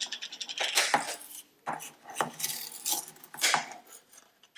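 Metal tablespoon scooping baking powder, scraping and clinking against the inside of the tin and against a steel bowl in a series of irregular short scrapes and taps.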